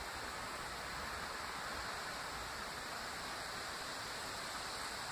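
Steady faint outdoor hiss of wind and rustling vegetation, with no distinct train sound standing out.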